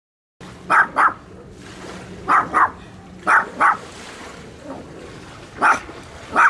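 Small Pomeranian barking: seven short, high-pitched barks, mostly in quick pairs, with longer gaps between the later ones.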